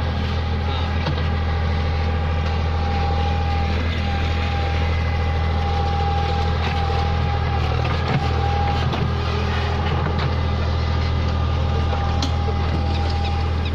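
Diesel engine of a tractor-mounted backhoe loader running steadily, with a steady high whine over the engine hum and a few small clanks.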